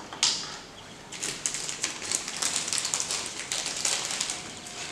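Clear plastic packet of sugar rustling and crinkling in the hands as a measuring spoon is dipped into it, with a quick knock just after the start.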